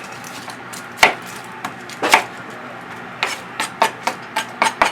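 Knife chopping onions on a cutting board: a couple of separate chops about a second apart, then a quicker run of chops in the last two seconds.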